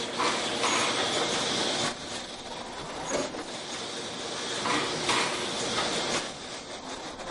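Non-woven bag making machine running: a steady mechanical clatter, with louder stretches in the first two seconds and again about five seconds in.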